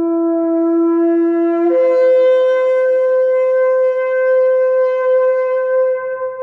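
Ram's-horn shofar blown in one long blast: a low note that jumps up to a higher note under two seconds in. The higher note is held and weakens near the end.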